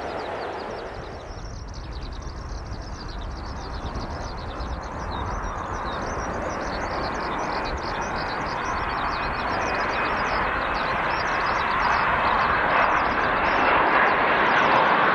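Jet airliner's engines rising steadily in loudness as the aircraft approaches, a broad rushing noise with a faint steady whine joining it in the second half.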